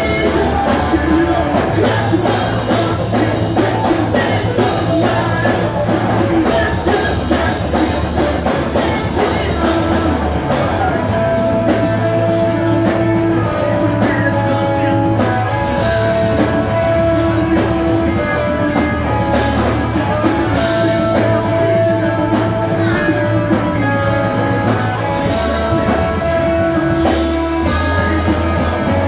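Rock band playing live and loud: electric guitars, bass and drums, with sung vocals over them.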